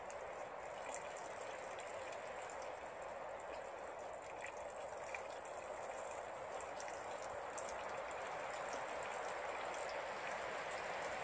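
Stormy night: a steady rushing of wind and rain in the trees, with faint fine ticks, growing slightly louder towards the end.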